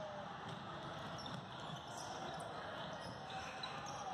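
Basketball game in progress: the ball bouncing on the court over a steady murmur of voices, with scattered short, sharp high sounds.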